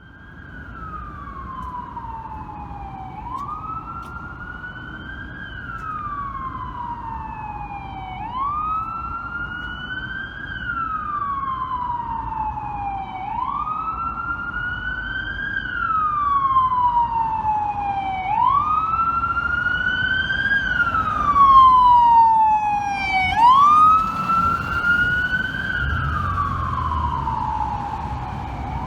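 Fire truck siren wailing in repeated cycles, about one every five seconds: each one sweeps quickly up in pitch, then falls slowly back down. It grows steadily louder, over a low traffic rumble, with a second siren fainter and higher part way through.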